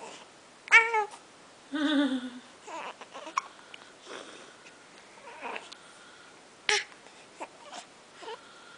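A baby's short vocal sounds: a high squeal just under a second in, then a longer coo that falls in pitch, followed by softer little noises and another brief squeal near the end.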